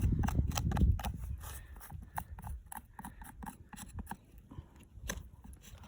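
A digging tool scraping and picking at rock-hard dry ground, with irregular clicks and crunches of loosened dirt and small stones. A low rumble on the microphone during about the first second.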